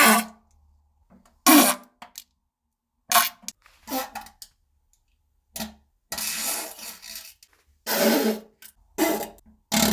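A series of farts: about eight separate blasts of differing length, each breaking off abruptly, the longest about a second and a half some six seconds in.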